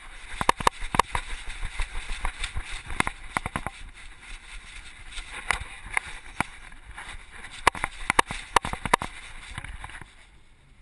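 A GoPro camera dangling from a corgi's collar knocking and rattling as it swings and bumps with the dog's movement, in irregular clusters of sharp knocks over a steady rustling hiss.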